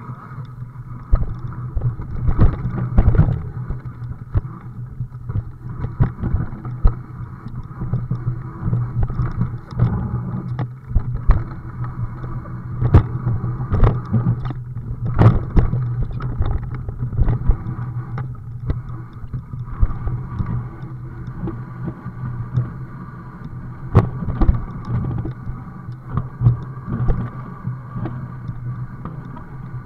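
Rattling and irregular knocks from a bike and its mounted camera jolting over a rough, stony dirt trail, over a steady low hum.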